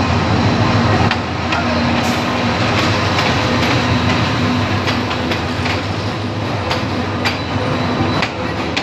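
Diesel locomotive passing close by, its engine running with a low hum. Passenger coaches follow it, rolling past with wheels clicking over the rail joints. The engine hum eases off after about a second, as the coaches take over.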